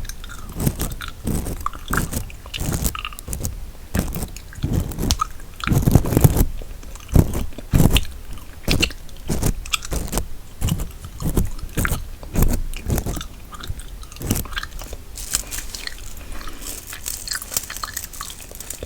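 Close-miked gum chewing: wet, irregular smacks and clicks of the mouth and jaw, a few per second.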